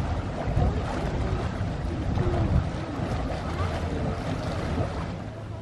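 Wind buffeting the microphone outdoors, a steady rumbling rush with faint distant voices under it; it eases near the end.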